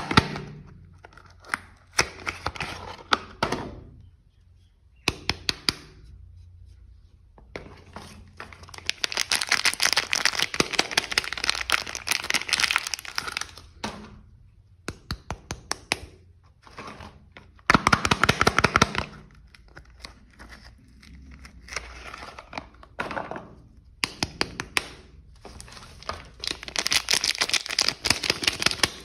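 Soap packaging being handled and unwrapped: wrappers crinkling in several longer stretches, between many sharp clicks and taps.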